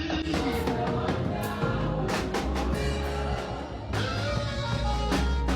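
Live church praise music: a drum kit with cymbal strikes, a strong bass line and other band instruments, with voices singing.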